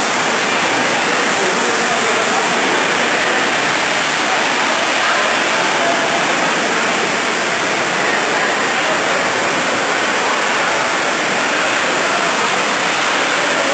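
Steady, loud rush of rainwater flooding through a building, an unbroken hiss of pouring and churning water.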